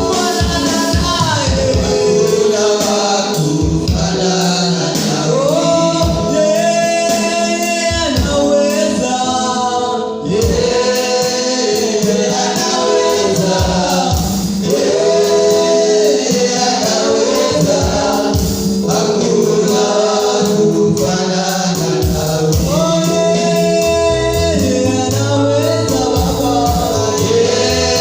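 Gospel worship music: a choir singing with a steady beat from the band.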